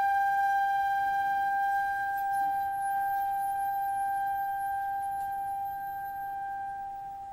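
Closing music: one long held flute note at a steady pitch, fading slowly and dying away near the end.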